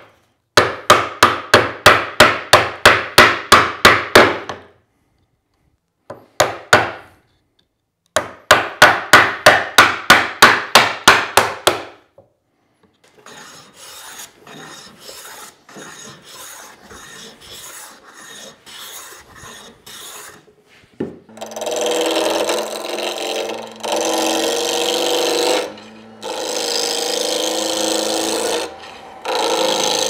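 A hammer rapidly striking a chisel, about four sharp blows a second in two runs, chopping the corners off a plywood cam-lever handle. Then a hand plane is pushed along a board edge in quieter repeated strokes. About twenty seconds in, a power tool starts up with wood worked against it, stopping briefly twice.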